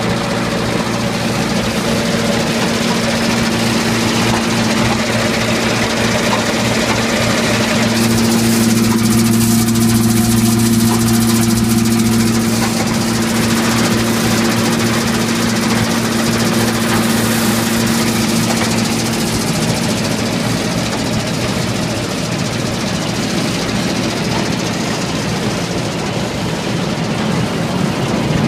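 Massey Ferguson 15 feed grinder-mixer running off a tractor's 540 rpm PTO, with the tractor engine and the turning grinder making a loud, steady hum at a constant pitch.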